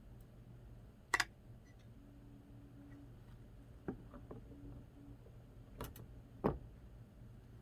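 A handful of sharp clicks and knocks, spread out and irregular, as a resin 3D print is worked loose from a magnetic build plate, over a faint low hum.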